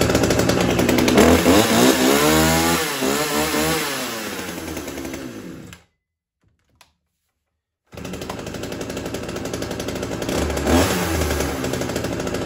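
Two-stroke petrol chainsaw running on the bench, revved up and down a few times and then easing off. It cuts off suddenly about six seconds in, and after a two-second gap it runs again more steadily, with a short rev near the end. This is a previously non-starting saw, rebuilt with shimmed bearings and now running.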